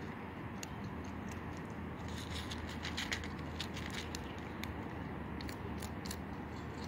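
A cat eating dry kibble: a run of small, irregular crunches and clicks, thicker about two to three seconds in and again near the end, over a steady low background hum.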